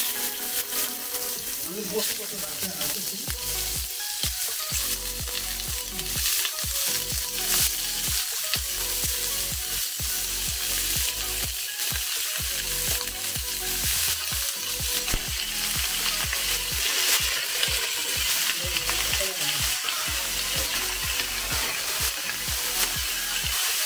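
Pieces of pork belly sizzling as they fry in a little hot oil in a wok. The sizzle starts suddenly as the meat goes in, grows as more pieces are added, and near the end the pieces are pushed around with a wooden spatula.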